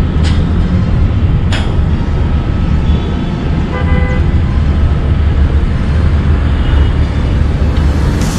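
Steady low rumble of a moving vehicle and road traffic, with a car horn tooting briefly about four seconds in and two sharp knocks in the first two seconds.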